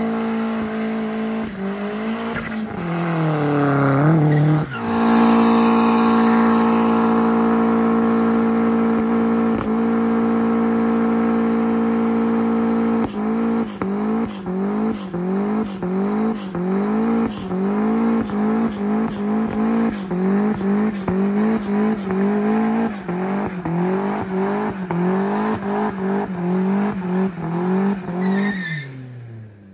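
Turbocharged 2004 Mazdaspeed Miata's four-cylinder engine through a side-exit straight pipe, held at high revs while the rear tires spin in a burnout. The revs hold steady for several seconds, then from about halfway rise and fall over and over, roughly one and a half times a second, with crackling from the exhaust, and drop away just before the end.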